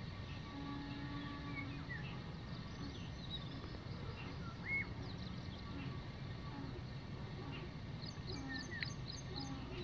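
Scattered short chirps and calls of small birds over a steady low rumble, with one louder note about halfway through and a quick run of high notes near the end.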